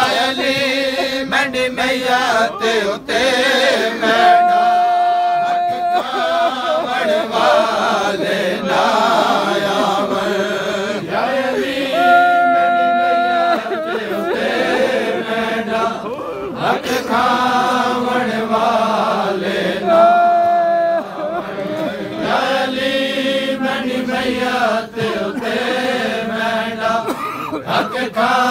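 Men of a Shia mourning group chanting a noha (lament) together without instruments, the lines sung in a wavering, melismatic style with several long held notes.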